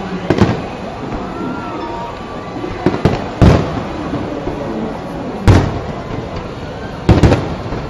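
Aerial fireworks bursting: a series of loud bangs, some in quick pairs, about every two seconds over a steady background din.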